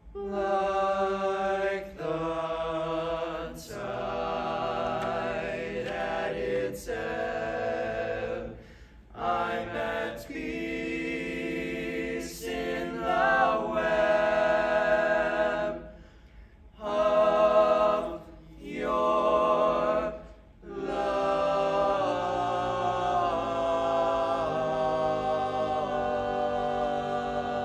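Five-voice a cappella ensemble singing in barbershop close harmony: sustained chords broken by short breaths and pauses, with one long held chord over the last several seconds.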